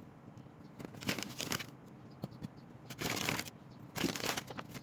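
Spoon scooping flour and tipping it into a bowl: a few short, soft scraping and rustling strokes.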